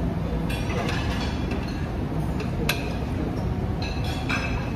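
A metal spoon and fork clink against a plate while eating; the sharpest clink comes a little under three seconds in. Under it runs a steady low rumble of background noise.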